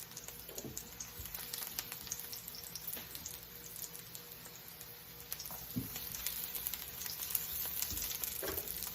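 Garlic frying in hot vegetable and sesame oil in a pan: a steady sizzling hiss with constant fine crackles as it sautés towards golden brown.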